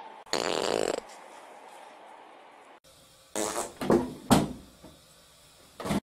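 Fart sounds. There is a loud one lasting under a second near the start, then a cluster of shorter ones about three to four and a half seconds in, and one more just before the end.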